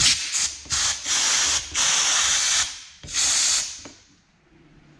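Compressed-air blow gun blasting dust out of the hoverboard's parts in about six short bursts of hiss. The longest burst, near the middle, lasts just under a second, and the last one ends a little past three and a half seconds in.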